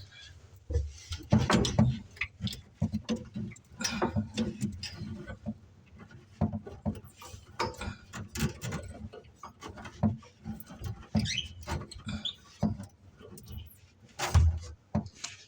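Irregular clicks, taps and knocks of hands and fittings being handled in the cabinet under a kitchen sink while the water shut-off valves are worked.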